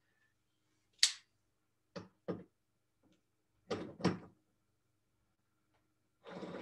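Several short separate knocks and clacks of a cordless pistol-grip screwdriver being picked up and handled, a sharp click about a second in and the louder bumps near the middle.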